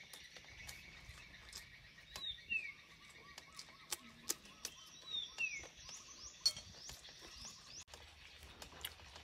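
A bird's falling whistled call, twice, about three seconds apart, over a steady high chorus of outdoor birds or insects. Sharp close clicks and smacks of eating are scattered through, the loudest about six and a half seconds in.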